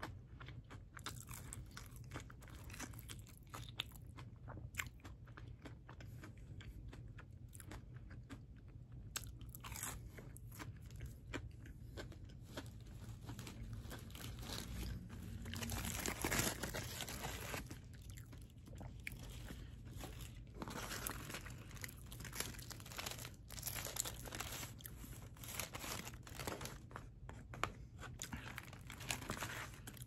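Close-miked chewing and crunching of breaded, cheese-filled jalapeño bites (Sonic Ched 'R Peppers), with wet mouth clicks throughout. About halfway through there is a louder rustle of paper as a burger wrapper is handled.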